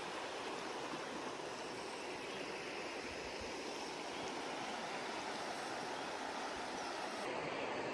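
Shallow mountain creek running over a rocky, pebbly bed: a steady rush and burble of water.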